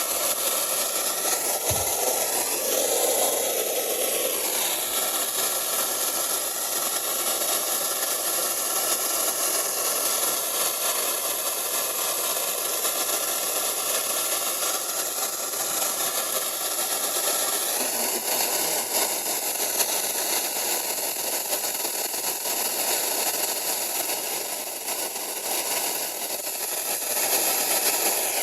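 Steady hiss of radio static from a receiver with a weak or absent signal, with faint tones drifting in it.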